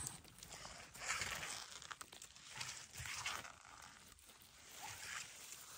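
Dry conifer needles and twigs rustling and crackling in irregular bursts under a gloved hand picking mushrooms from the forest floor.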